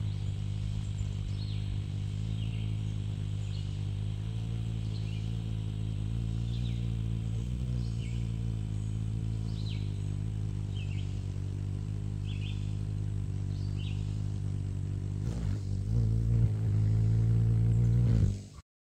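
Hummingbird's wings humming as it hovers, a low steady hum with overtones that grows louder near the end as the bird comes close. Short high chirps repeat about once a second through most of it, and all sound cuts off abruptly just before the end.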